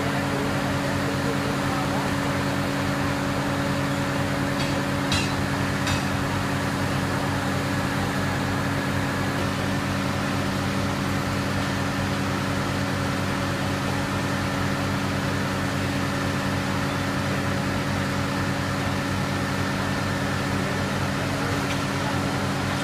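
Concrete pump running steadily: a constant machine drone with fixed low tones, and a couple of brief clicks about five and six seconds in.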